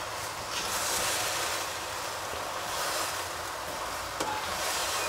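Beans, diced capsicum with its liquid, and chopped vegetables being stirred in a hot stainless steel saucepan: a wet shuffling and scraping that swells and fades in waves, with a single sharp click about four seconds in.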